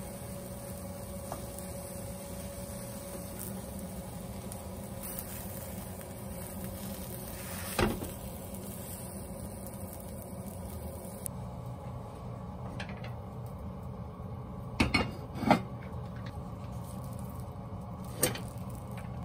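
Steady low kitchen background noise with a single sharp knock about eight seconds in, then a wooden spatula stirring cooked rice in an enamelled pot, knocking against it several times, the loudest two strokes close together in the second half.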